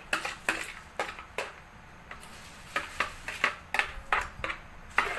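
A metal spoon clinking and scraping against a bowl in irregular taps as sauce is scooped out and spooned over a raw whole chicken.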